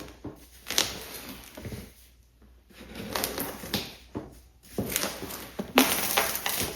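Irregular rustling and crinkling with sharp clicks and knocks, like packaging and objects being handled.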